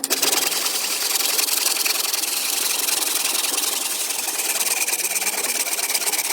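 A small electric tool running steadily with a dense, hissing whir.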